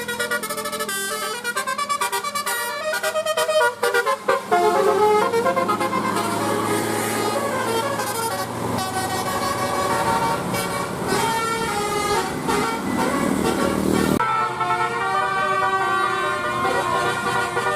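Tour bus telolet horn of the Basuri type, a multi-tone musical horn, playing a tune in quick stepped notes. About fourteen seconds in it cuts abruptly to another horn tune.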